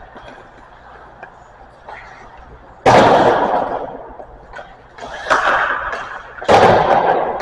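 Hockey pucks being shot and striking hard in an ice arena: a loud sharp crack about three seconds in, a softer hit a couple of seconds later and another loud crack near the end, each echoing away over about a second.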